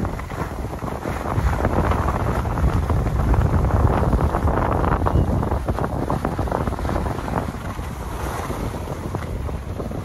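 Wind rushing over the microphone as a skier moves downhill, with the hiss and scrape of skis on groomed, packed snow. The rumble swells a couple of seconds in and eases somewhat in the last few seconds.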